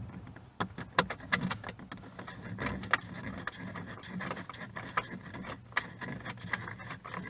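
Irregular plastic clicks, knocks and scrapes as a Renault Clio Mk2 interior door handle is worked loose from the door and its fixing nut is taken out.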